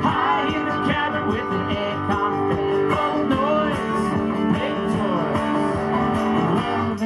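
Live country band playing an instrumental passage: strummed acoustic guitars and electric bass, with a bending melody line over a regular beat. The music drops off sharply near the end.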